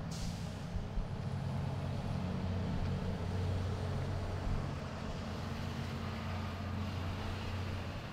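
A motor vehicle engine running steadily: a low hum with a few held low tones over road noise.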